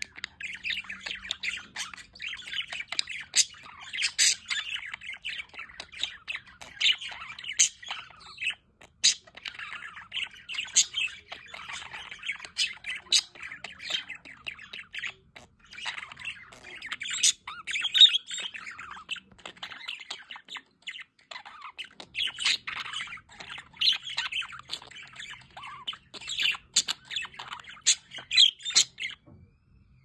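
Budgerigars chattering: a continuous jumble of chirps, warbles and short squawks from a flock, cutting off abruptly just before the end.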